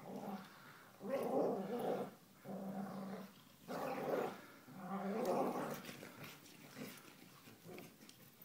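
Dogs growling while play-fighting, four rough growls in quick succession over the first six seconds, then quieter.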